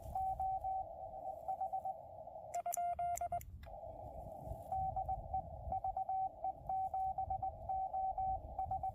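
Morse code (CW) from a portable ham radio: a steady beeping tone keyed on and off in dots and dashes over a narrow band of receiver hiss. About two and a half seconds in, a brief run of a sharper, cleaner keyed tone interrupts it before the hiss-backed dots and dashes return.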